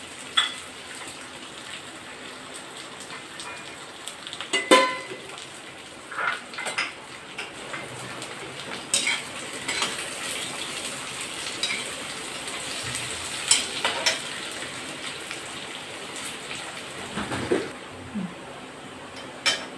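Sliced onions sizzling in oil in a metal kadai, frying until they brown. A long steel ladle scrapes and clinks against the pan every few seconds as they are stirred.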